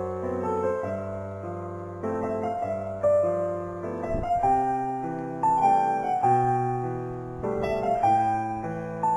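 Piano music: a gentle, slow melody over sustained chords, notes changing about every second.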